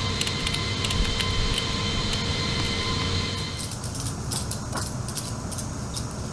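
Steady rumble of a C-17's cargo hold with a high whine from the aircraft's systems, which cuts off a little past halfway. Through it come sharp metal clicks and clinks of ratchet strap buckles being worked on the fuel bladder restraint straps.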